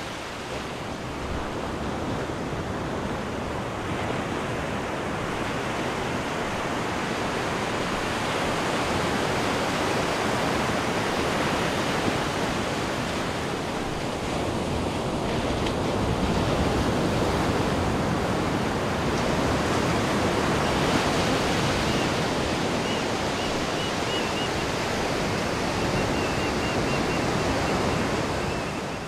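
Ocean surf breaking on a sandy beach, a steady wash of noise that slowly swells and eases. Faint high chirps come in near the end.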